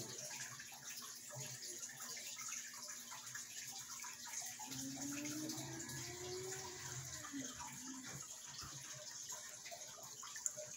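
Turtle tank filter returning water, splashing and trickling steadily into the tank.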